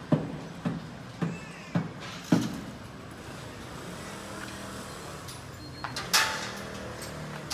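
Footsteps on pavement, about two a second, stopping about two and a half seconds in, over the steady hum of street traffic; a short, louder sudden noise comes about six seconds in.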